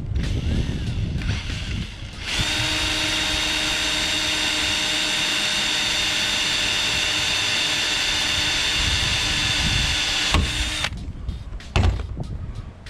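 Ryobi cordless drill boring into an aluminum bracket on a roof rack, running at a steady high speed for about eight seconds and then stopping. A sharp click follows near the end.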